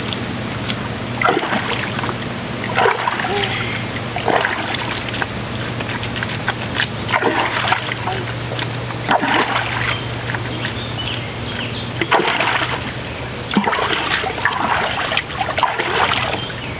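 River water splashing and sloshing in irregular bursts every second or two, as a person standing knee-deep in the river splashes and pours water with her hands.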